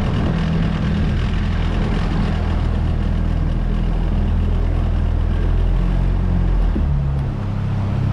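Boat outboard motor running steadily, its pitch shifting slightly near the end.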